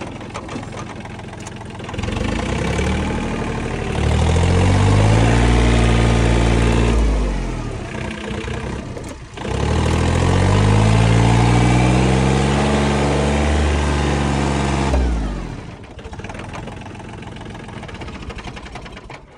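John Deere 3028 compact tractor's three-cylinder diesel engine revving up and holding high, easing off, then revving up and holding again, before dropping back to a lower idle for the last few seconds.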